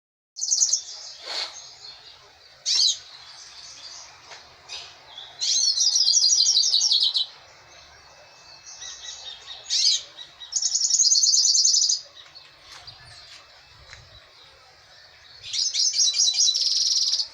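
Hooded siskin singing: several bursts of rapid, warbling twittering song, each one to two seconds long, separated by short single call notes.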